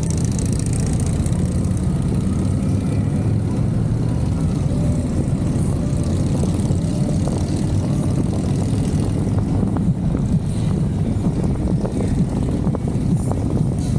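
Motorcycle engines running at a steady, loud rumble while riding, with some wind noise and a few short ticks in the second half.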